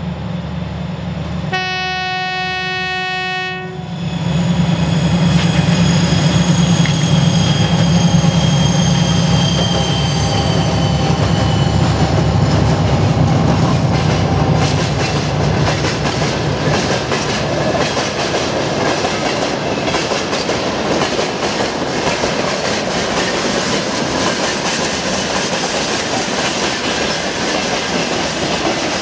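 3TE10U three-section diesel freight locomotive approaching under power, its diesel engines droning. It gives one horn blast of about two seconds, then passes close with a loud rush and a high whine falling in pitch. After that comes the steady clickety-clack of tank-car wheels over rail joints as the train rolls by.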